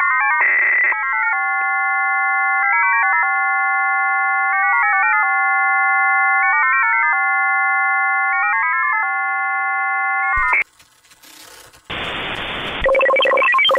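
Russian digital 'number station' F07 received on shortwave upper sideband: five tones sounding together, held steady and then stepping through a quick warbling run of new pitches every couple of seconds, with a short buzzy hiss burst near the start (its fast data part). About ten seconds in it cuts off; a second of hiss follows, then the fast-warbling 16-tone signal of station XPB.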